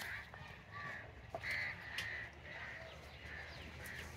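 Faint crows cawing over and over, short calls about twice a second, with a few light clicks mixed in.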